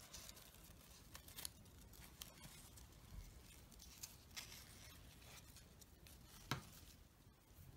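Very faint rustling and light ticks of fabric petals and thread being handled, with one sharper tick about six and a half seconds in.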